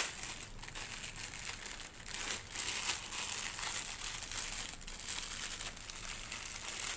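Plastic packaging crinkling as the kit's parts are handled, a steady stream of small crackles.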